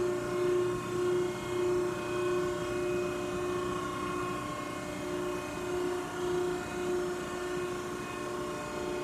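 Cincinnati 90CBX6 CNC hydraulic press brake running idle under power: a steady hum made of several pitched tones, one strong tone wavering slightly in level.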